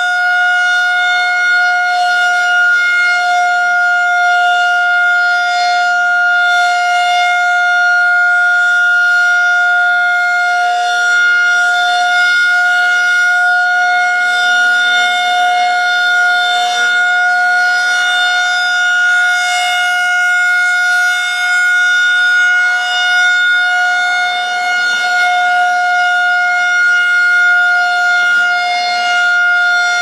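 Federal Signal 2001-130 rotating electromechanical siren running at full speed during a test. It holds one steady pitch, and the loudness swells and dips slightly as the horn turns.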